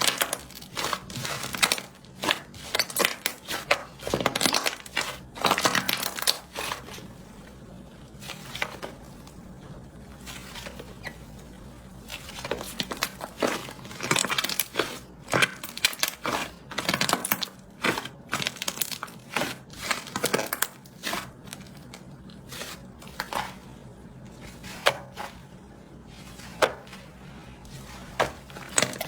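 Slime being worked by hand, giving clusters of quick pops and crackles with quieter stretches in between.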